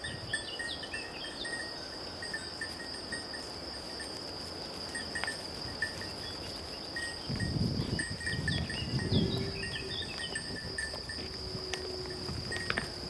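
Quiet outdoor ambience: a steady high-pitched whine, a few short falling chirps like small birds near the start and again after the middle, and a low rumble for a few seconds after the middle.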